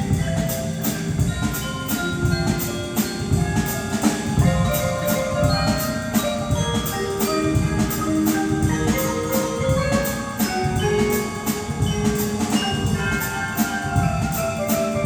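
School band playing live, held notes over a steady beat with prominent percussion.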